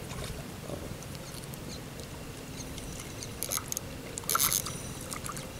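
A hooked tilapia thrashing at the pond's surface as it is reeled in: two short splashes about a second apart near the end, over a quiet outdoor background with a few faint clicks.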